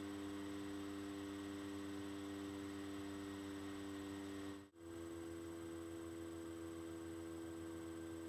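Steady electrical hum over a faint hiss. It cuts out for a moment about halfway through and comes back a little higher in pitch.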